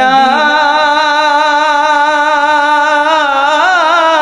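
A solo voice singing a Bengali Islamic song (gojol), holding the word 'Madina' as one long wavering note, ornamented near the end.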